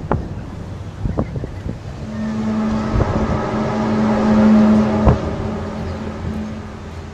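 A steady droning tone with many overtones, sounding like a plane or an orchestra warming up, comes from the sky. It swells in from about two seconds in, peaks, and fades out near the end, over a rumble of wind and traffic. A single sharp knock lands about five seconds in.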